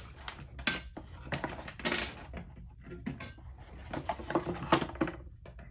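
Soldering iron and its stand being handled: a string of light metallic clinks and knocks, irregular, throughout.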